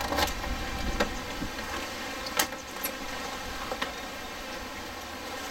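Sliding doors of a metal storage shed being unlocked at the handle and slid open: a series of sharp clicks and knocks from the latch and door panels, the loudest about two and a half seconds in, over a steady background.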